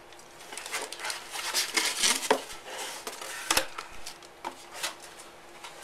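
Cardboard packing layers and plastic wrap rustling and scraping as they are lifted out of a box by hand, with scattered knocks and one sharp click about three and a half seconds in.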